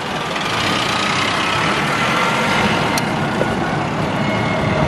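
Steady engine and road noise of a moving vehicle heard from inside it in city traffic, with a faint steady whine and a single sharp tick about three seconds in.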